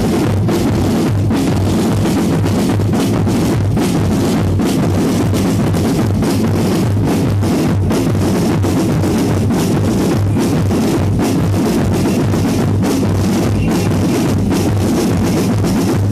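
Loud music with a drum kit keeping a steady, even beat throughout.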